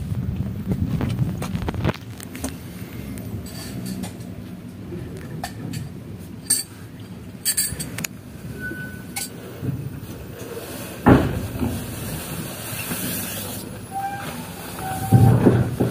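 Inside a passenger train carriage: a steady low rumble with scattered clinks and knocks, and one louder knock about two-thirds of the way through.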